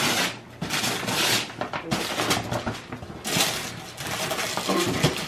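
Christmas wrapping paper being torn off gift boxes and crumpled, in several quick rips.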